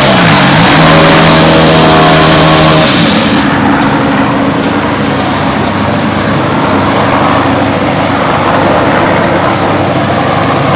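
Toyota GR Yaris Rally1 rally car's turbocharged four-cylinder engine running as the car climbs the podium ramp. The note dips briefly near the start and holds steady for about three seconds, then gives way to a rougher, noisier sound.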